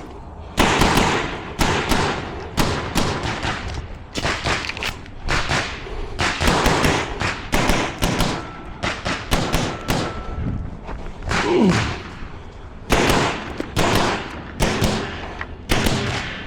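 9mm CZ Shadow 2 pistol fired rapidly through a practical-shooting stage. The shots come mostly in quick pairs and short strings, with brief pauses between strings.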